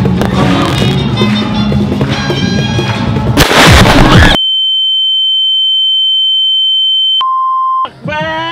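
Music plays, then about three and a half seconds in a loud firework blast goes off close by for about a second. It cuts abruptly to a steady, pure high-pitched tone for about three seconds, then a lower tone briefly: an added ringing-in-the-ears effect after the firework exploded by someone's ear.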